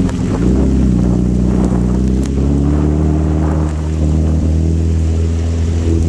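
Honda turbocharged jet ski engine running under way at a steady pitch after a slight shift early on, with a hiss of rain and spray on the water beneath it.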